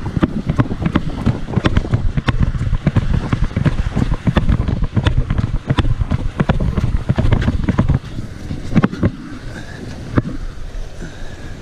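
Strong wind buffeting an action camera's microphone, a heavy low rumble, mixed with frequent sharp clicks and knocks as the rod, reel and camera are handled and carried along the jetty. It eases somewhat about eight seconds in.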